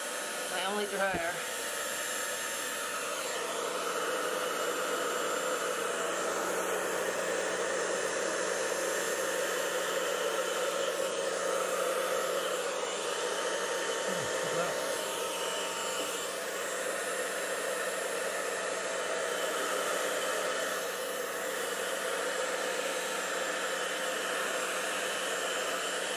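Handheld Rusk hair dryer running steadily, a continuous whoosh of air with a low motor hum, blowing across a board of wet thinned paint.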